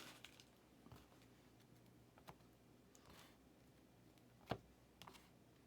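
Near silence in a small room, broken by a few faint, sharp clicks or taps, the most distinct about four and a half seconds in.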